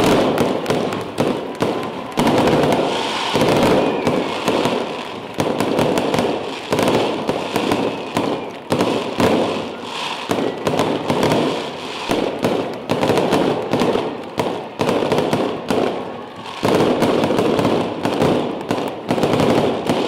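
Audience applauding loudly, dense clapping that breaks out suddenly and keeps going, with a short dip near the end.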